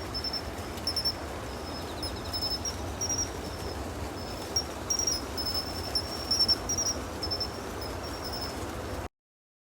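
Crickets chirping: short, high chirps, one or two a second, over a steady low background noise. The sound cuts off suddenly about nine seconds in.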